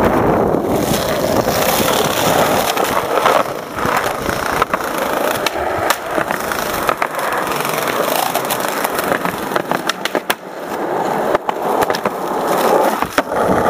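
Skateboard wheels rolling over asphalt and concrete, with repeated sharp clacks of the board hitting the ground.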